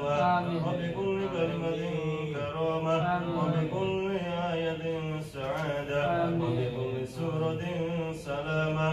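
A man chanting an Arabic supplication in long, melodic, drawn-out phrases: the du'a that closes a completed recitation of the Quran.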